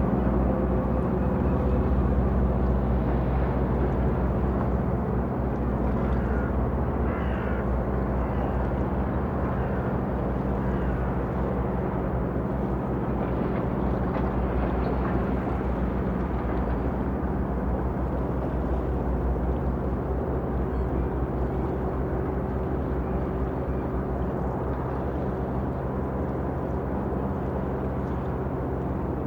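Ship ambience: a steady low engine drone and hum with water washing and lapping against the hull, and a few faint bird calls about seven seconds in.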